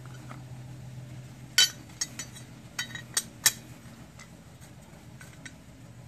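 Metal parts of a car air-conditioning compressor's magnetic clutch clinking and knocking as the clutch plate is handled against the pulley: a string of sharp separate clinks, the loudest about one and a half seconds in and around three seconds in.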